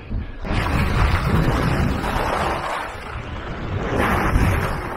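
Wind rushing over the microphone of a camera carried by a skier moving downhill, with the skis sliding over the snow. The noise swells and eases a few times.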